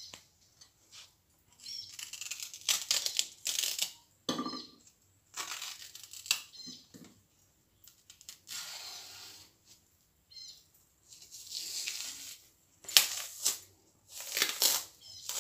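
Ripe plantain being peeled by hand: the skin tearing away from the flesh in a series of short strips, with pauses between, the loudest about thirteen seconds in.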